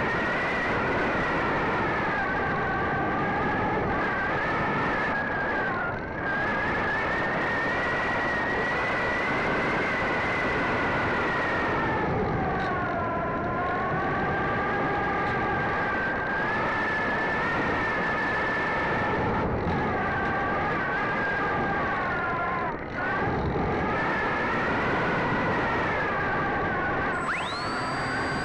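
Sky Surfer RC glider's electric motor and propeller whining in flight, heard from a camera on the airframe, with a rush of air noise. The whine sags in pitch and comes back several times as the throttle or airspeed changes, and a high tone sweeps up sharply near the end.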